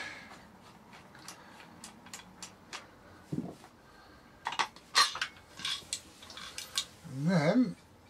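Black plastic motor housing of a Hoover Junior U1034 vacuum cleaner being worked loose and pulled off the motor once its three screws are out: a string of light plastic and metal clicks and rattles, thicker and louder in the second half.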